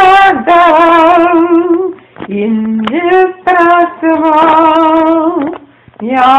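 A woman singing, holding long notes with a wide vibrato, with short breaks between phrases.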